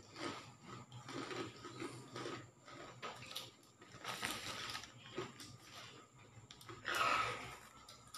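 Plastic bag of boiled balut eggs rustling and crinkling as the eggs are taken out onto the table, with light taps and crackles of eggshells being peeled. The sound comes in short bursts, louder about four and seven seconds in.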